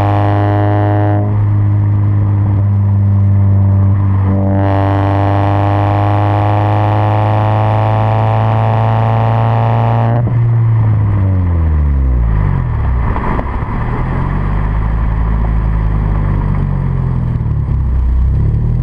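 2009 Scion tC's four-cylinder engine through a DC Sports header and Tsudo catback exhaust, heard right at the tailpipe while driving. It pulls hard under throttle, eases off briefly, then pulls again with the note slowly rising in pitch. About ten seconds in, the throttle is lifted and the note falls away, then the revs dip and rise again.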